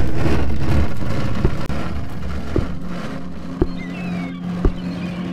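A loud rumbling noise that fades over the first two seconds into a steady low hum, with soft knocks about once a second and a faint high chirping near the end.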